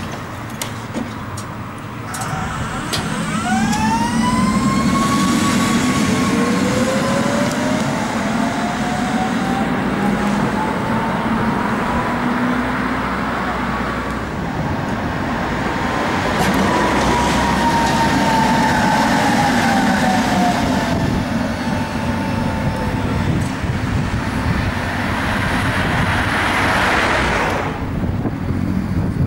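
Tatra T3 tram pulling away from a stop, its traction motors giving a whine that rises in pitch as it accelerates and then slowly falls, over a low rumble. The sound cuts off abruptly near the end.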